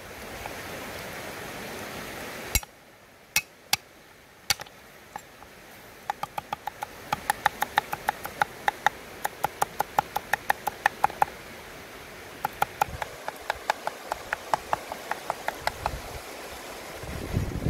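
Meat cleaver mincing garlic cloves on a round wooden chopping block. A few single sharp knocks come first, then quick runs of chops at about four to five a second.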